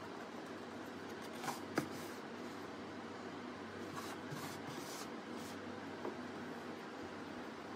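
A blank craft mask handled on a wooden table: two light clicks about one and a half seconds in, then soft scuffing strokes as it is turned and shifted, and one more small tap near the end, over a steady low room hum.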